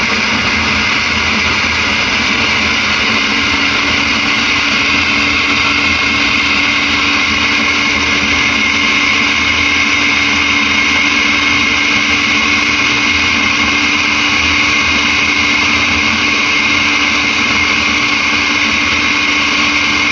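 Electric chopper machine running steadily at speed, its blade chopping okra, onion and green chillies in the jar: a loud, even motor whine, with a lower steady hum coming in a few seconds in.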